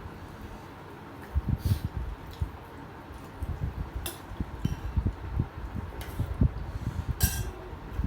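Close-miked eating of fish curry: irregular wet chewing and mouth smacking, with a few sharp clicks like utensils or fingers on a plate.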